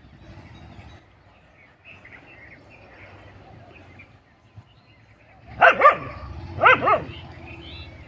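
A dog barking at a hooded cobra in two quick pairs of barks, a little past halfway and again about a second later. These are threat barks from a dog squaring up to the snake.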